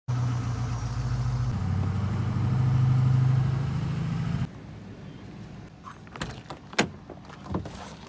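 Pickup truck engine running steadily, heard from inside the cab, with a low hum that gets a little louder about a second and a half in and cuts off suddenly after about four and a half seconds. Then quieter sharp clicks and knocks of handling inside the cab.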